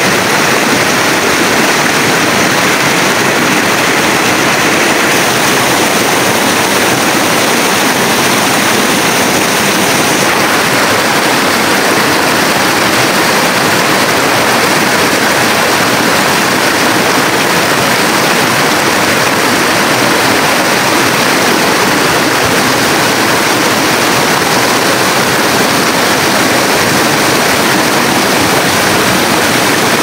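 River water rushing over rocks, a loud steady rush.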